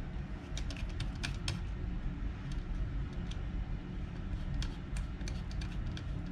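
Precision screwdriver turning a small screw on a GPU retaining lock, giving scattered light clicks and ticks over a low steady hum.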